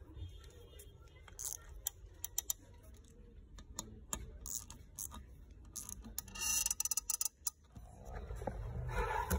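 Scattered small clicks and taps of hand tools and car parts being handled on a workbench, with a short louder rattle about six and a half seconds in.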